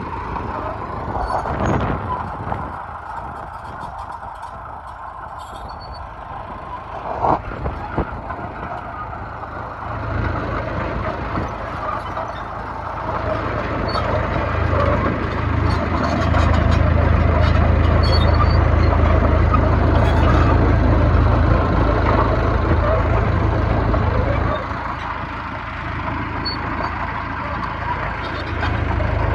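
Bulldozer's diesel engine running, its drone building up partway through, holding loudest for several seconds, then easing off and picking up again near the end. A brief sharp click sounds once early on.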